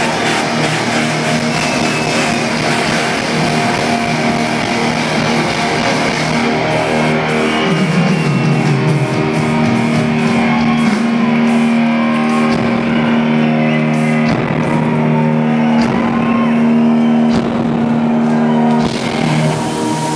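Live rock band playing loud: distorted electric guitars and bass holding long sustained notes, with a note sliding down about eight seconds in and scattered drum and cymbal hits.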